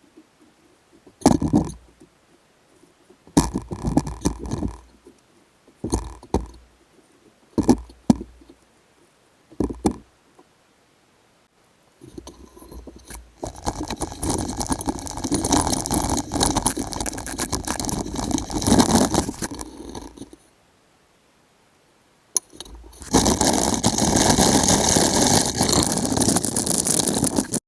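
Electric welding on square steel tube: about ten short crackling bursts of tack welds, then two longer runs of steady crackle as beads are laid, the second cut off abruptly.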